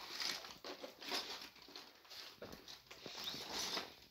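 Handling noise of cardboard LEGO set boxes being shuffled and picked up: irregular rustling with light knocks.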